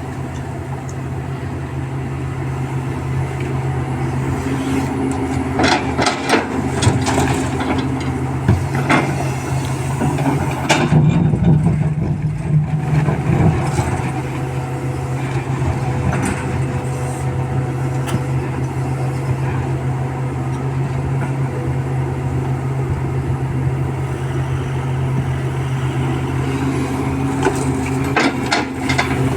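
Diesel engine of an EX350 hydraulic excavator running steadily while loading a tipper truck. It works harder for a couple of seconds about midway. Scattered knocks and clatter come at several points, the busiest stretch being about five to nine seconds in.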